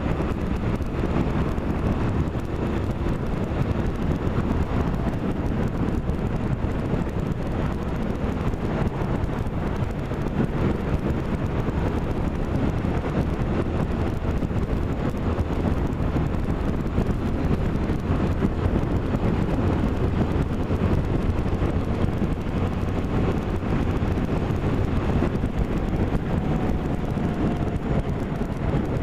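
Steady vehicle running noise with wind rushing over the microphone, even and unbroken throughout.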